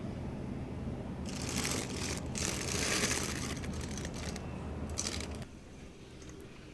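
A plastic bag of leafy greens crinkling as it is picked up and handled: two rustles of about a second each, then a few shorter ones. A low steady hum sits underneath and cuts off about five seconds in.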